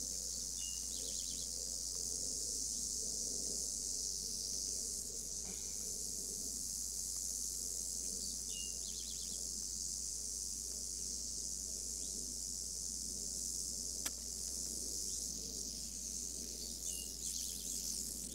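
Timber rattlesnake rattling: a steady high-pitched buzz that swells and eases slightly, the defensive warning of a snake pinned down with snake tongs.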